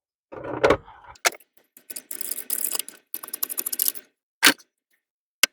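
Metal tools and parts being handled: a knock, a few sharp clicks, then two stretches of metallic rattling and clatter, with another click or two near the end.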